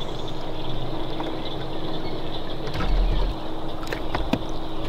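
Electric trolling motor's faint steady hum under the open noise of a small boat, with a low dull thump about three seconds in and a few light clicks near the end.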